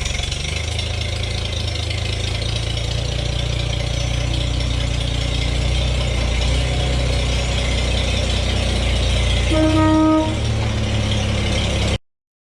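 Old farm tractor engine running steadily, with its energy in a low rumble. About ten seconds in a short high tone sounds for under a second, and then all sound cuts off suddenly.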